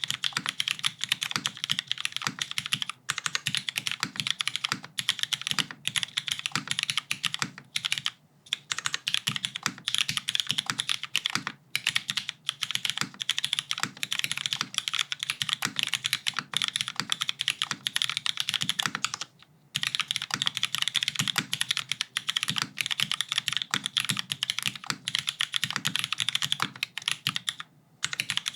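Fast, continuous typing on a 60% mechanical keyboard with Hyperglide Cherry MX Black linear switches in a top-mounted aluminium plate, under GMK doubleshot ABS keycaps. Dense key clacks with brief pauses in the typing here and there.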